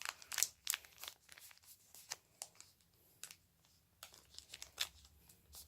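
Crinkling and tearing of a foil Pokémon booster pack wrapper being opened by hand: irregular short crackles, with a quieter pause in the middle.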